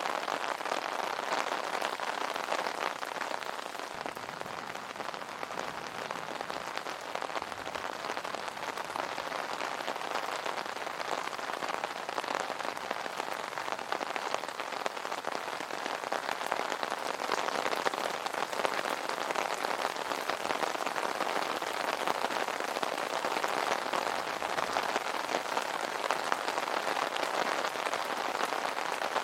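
Steady rain falling on an umbrella canopy: a dense patter of individual drops over an even hiss, with no thunder.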